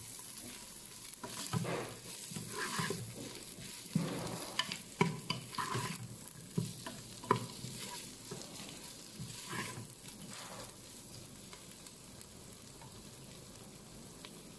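Onions, green chillies and fresh tomato wedges sizzling in hot oil in a nonstick pot, stirred with a wooden spatula that scrapes and knocks against the pan. The stirring stops about eleven seconds in, leaving a steady soft sizzle.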